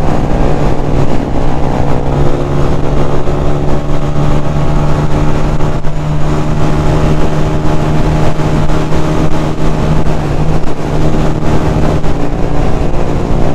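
Honda CG 125's single-cylinder OHV four-stroke engine running at a steady cruising speed, with wind rumbling on the microphone.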